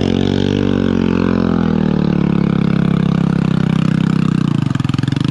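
Motorcycle engine revved up and held at steady revs, dropping back to a slow idle beat near the end.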